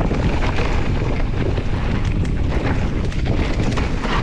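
Wind rushing over the microphone of a mountain bike rider's camera during a ride, with a steady run of small clicks and rattles from the bike and tyres over a muddy, slippery trail.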